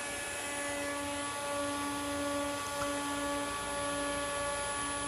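Steady electrical hum and fan whir of running computer equipment, with a few constant tones and a lower tone setting in about half a second in.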